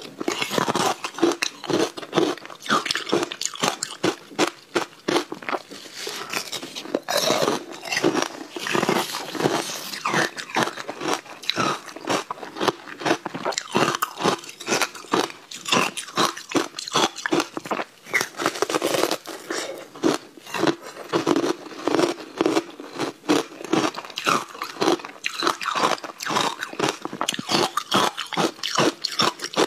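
Frozen ice blocks being bitten and chewed: a rapid, irregular run of sharp crunches, several a second, loud and close.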